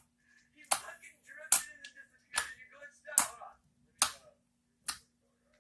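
Slime being worked by hand, giving six sharp slapping pops at an even pace, about one a second.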